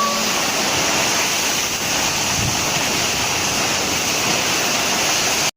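Strong storm wind blowing hard, a steady loud rushing noise that cuts off abruptly near the end.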